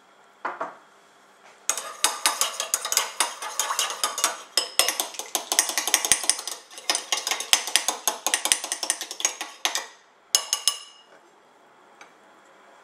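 Metal spoon stirring a sauce in a ceramic bowl, a rapid run of clinks and scrapes against the bowl for about eight seconds, followed by a short final burst. A single brief clink comes just before.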